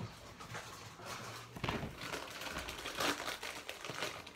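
Food packaging crinkling as it is handled, in a few short rustles.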